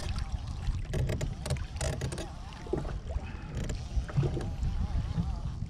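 Wind buffeting the microphone as a constant low rumble, with water slapping and splashing against a kayak hull and scattered knocks.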